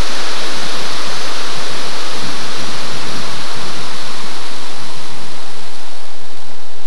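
Loud, steady rush of airflow over the onboard camera's microphone on an Easy Glider Pro RC glider in flight, a hiss with no motor tone, easing slightly near the end.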